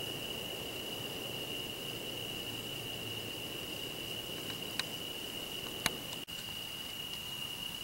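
A steady, unbroken high-pitched insect trill, typical of crickets, runs throughout. Two light clicks come about five and six seconds in, and the sound drops out for an instant just after.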